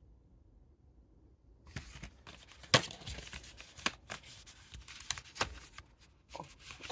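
Packaging of a tail-light lens repair kit crinkling and clicking as it is handled and opened, with sharp cracks about three and four seconds in. The first second or so is near silence.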